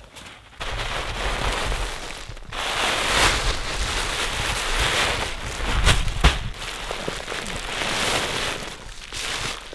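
Close rustling and crackling as the moss covering of a primitive ground cooler is pulled away and its contents handled, with a couple of sharper snaps about six seconds in.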